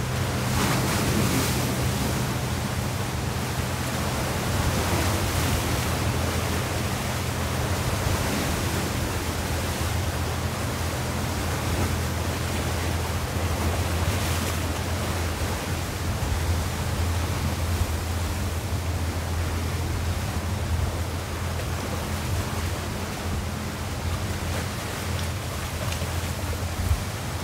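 Steady rush of wind and choppy sea water, with a low steady hum underneath.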